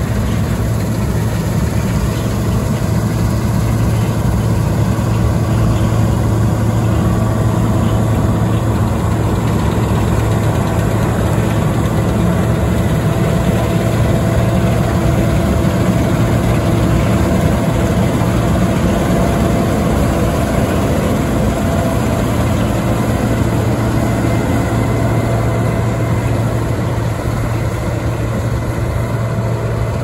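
Case IH 2388 Axial-Flow combine harvester running steadily while harvesting barley: its six-cylinder turbocharged Cummins diesel and threshing machinery give a constant low hum with a few steady higher tones. It grows a little louder as it passes close by through the middle, then eases off as it moves away.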